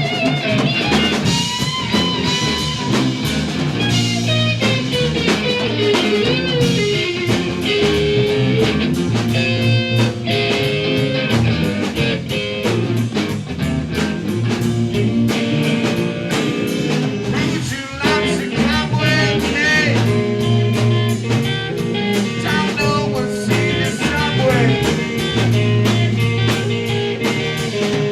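Rock band playing: an electric guitar lead with bent, wavering notes over bass and a drum kit.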